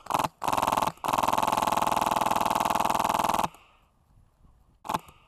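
Airsoft electric rifle (AEG) firing full-auto bursts: two short bursts, then a long burst of about two and a half seconds, and one brief burst near the end.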